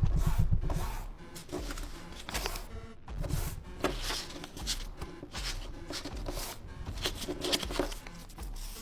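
Background music: a slowed-down track with a heavy bass beat and sharp percussive hits.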